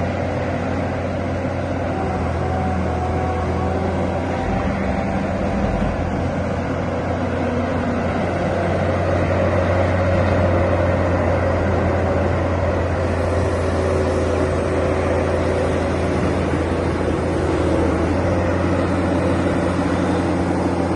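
Volvo diesel engine of a 1993 Akerman EC420 tracked excavator running steadily with a deep, even hum, a little louder from about nine seconds in.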